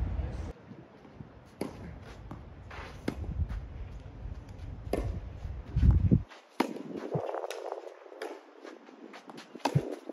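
Tennis ball struck back and forth with rackets on a clay court, a sharp hit every second or two, with footsteps scuffing the clay. Wind buffets the microphone for the first six seconds, then cuts off suddenly.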